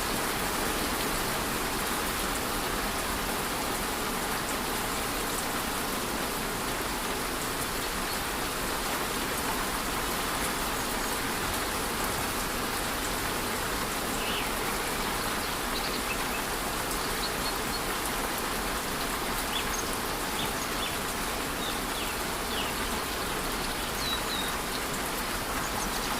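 Steady rushing of a waterfall mixed with light rain falling on foliage, an even wash of water noise. In the second half, a few short, high bird chirps sound over it.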